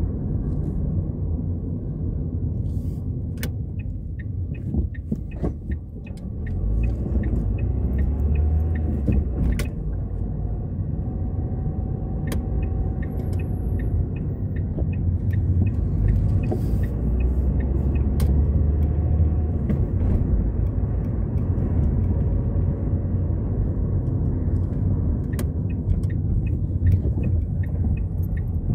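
Car driving, heard from inside the cabin: a steady low rumble of engine and road noise that eases briefly about five seconds in, with a few light clicks and rattles.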